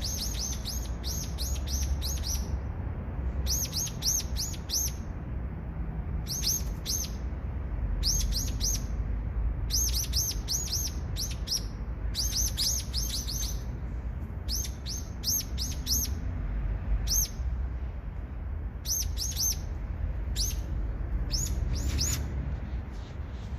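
A songbird singing in short bursts of three to six rapid, high, downward-sweeping notes, a burst roughly every second or two, over a steady low rumble.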